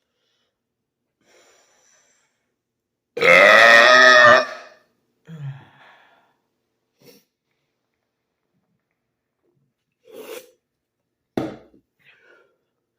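A man's long, loud burp about three seconds in, lasting over a second, brought up by gulping cold carbonated Sprite. Several short, quieter sounds follow later.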